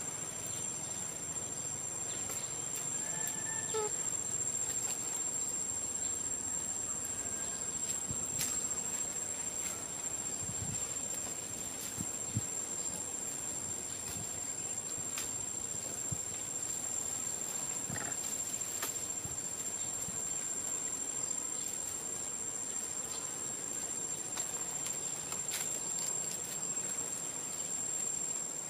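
Insects shrilling in one steady, high, unbroken tone, with a few faint short calls about three to four seconds in and scattered light clicks.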